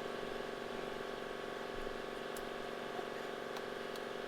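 Skid steer engine idling with a steady, even drone, with a few faint clicks over it.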